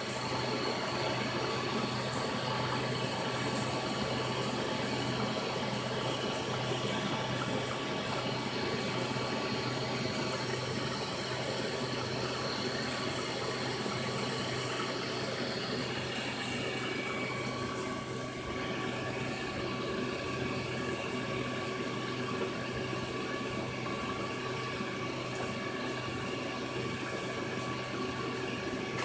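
Aquarium filter running in a turtle tank: a steady rush of water splashing back into the tank over a low pump hum.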